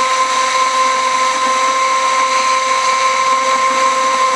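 Electric mixer motor running continuously with a steady whine, stirring salt into water.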